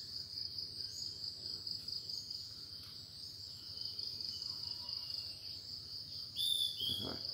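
Insects trilling, a steady high-pitched drone. Near the end there is a brief chirp and a soft thump.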